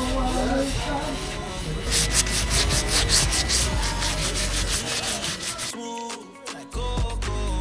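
Hand sanding of a catamaran's antifouling bottom paint with an abrasive pad: quick, rhythmic rubbing strokes against the hull. The scrubbing stops about six seconds in.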